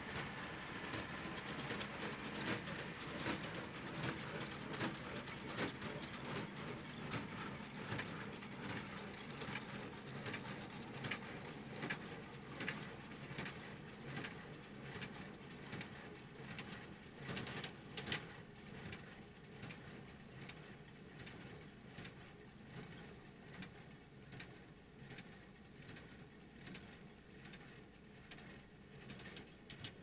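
John Deere tractor pulling a small square baler through windrowed hay, the engine running under the baler's repeated knocking. The sound fades as the rig moves away, with a louder clatter about eighteen seconds in.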